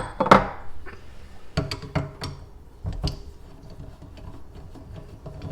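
Irregular clicks and knocks of hand work on a Glacier Bay faucet as a handle is taken off, with a cluster of sharper knocks near the start and again around the second and third seconds.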